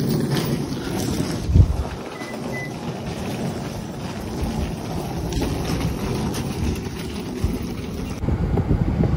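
Wheeled suitcases rumbling as they are pulled over a concrete driveway, with wind noise on the microphone. One short thump about a second and a half in.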